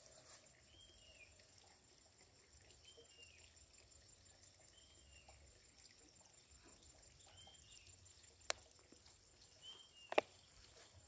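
Quiet pond-side ambience with a bird repeating a short high chirp about every two seconds. Two sharp clicks come near the end.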